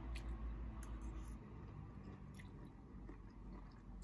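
People chewing mouthfuls of spicy instant noodles, quiet wet chewing with a few faint clicks, over a steady low hum.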